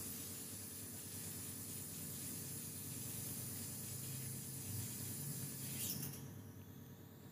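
Steady hiss with a faint low hum under it; a short click comes about six seconds in, after which the hiss thins out.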